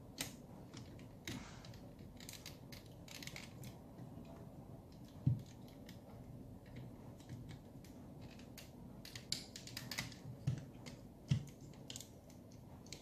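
Irregular light clicks and ticks of hard plastic parts on a transforming-robot figure being handled, folded and fitted into place, with a few duller knocks scattered through.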